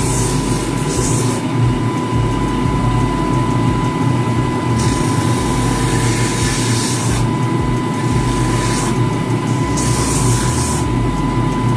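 Electric sanding machine running with a steady motor hum and a thin whine. A harsh hiss comes and goes in stretches of about two seconds as the shoe is pressed against it, roughing the surface and stripping off the old glue.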